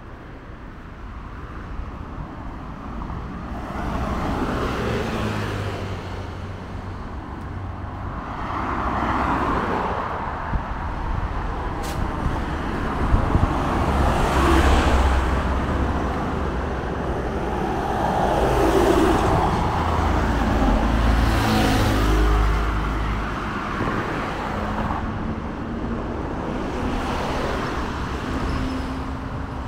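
Road traffic: a series of cars passing one after another, each swelling and fading, over a steady low rumble.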